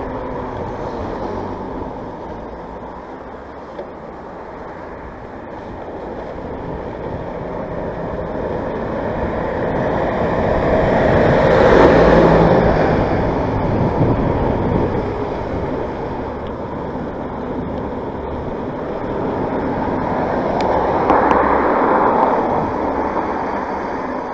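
Mountain bike riding over a waterlogged trail: a steady rushing noise of tyres in wet ground and air over the microphone. It swells loudest about halfway through and again near the end.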